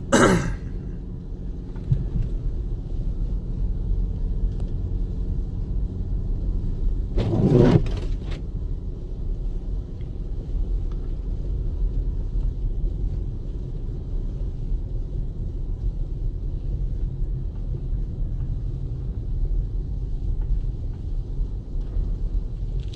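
2014 Jeep Grand Cherokee Summit driving on a snowy road, heard from inside the cabin: a steady low rumble of engine and tyres. There is a brief louder swell right at the start and a stronger one about seven seconds in.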